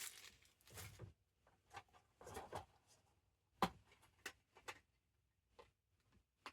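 A plastic DVD case being handled and opened: soft rustling, then a few sharp separate clicks after the middle.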